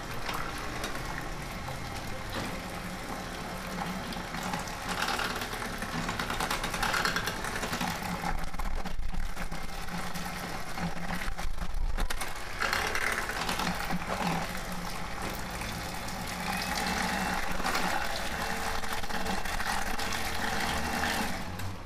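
Electric hand mixer running, its beaters whirring through thin crêpe batter in a glass bowl, the loudness rising and falling as it is worked around the bowl.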